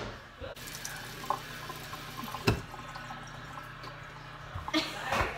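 Kitchen tap running into the sink as a steady rush of water, with a sharp knock about halfway through and a couple more clatters near the end.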